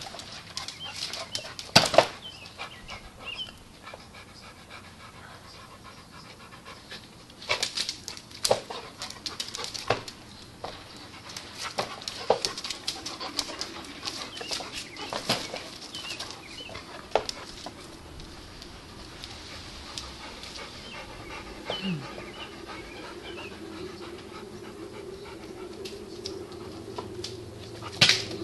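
Two dogs play-fighting: paws scrabbling and bodies bumping in irregular scuffles, with panting between them.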